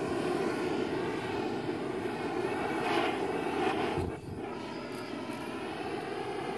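Handheld propane torch burning with a steady rushing sound as it heats the end of polyethylene pipe to soften it for pushing onto barbed fittings. The sound dips briefly about four seconds in.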